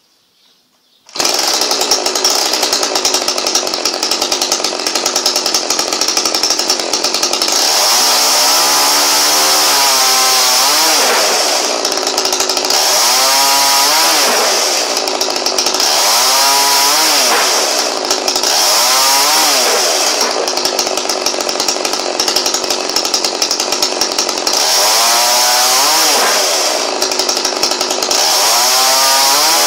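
Two-stroke chainsaw with its throttle held open, running at high revs; the sound starts about a second in. From about eight seconds in it cuts through olive branches again and again, and each cut drags the engine's pitch down before it climbs back, about six times.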